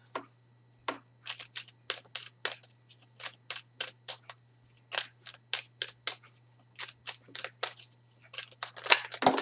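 A tarot deck being shuffled by hand: a string of short, crisp card slaps at about two to three a second, with a louder cluster near the end.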